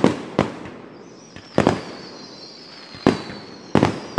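Aerial fireworks shells bursting: five sharp bangs in about four seconds, each trailing off. From about a second in, a high whistle holds under them, falling slightly in pitch.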